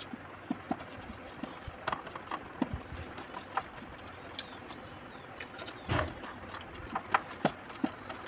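Eating by hand from a steel plate: irregular clicks and smacks of chewing and of fingers mixing rice against the metal plate, with one louder thump about six seconds in.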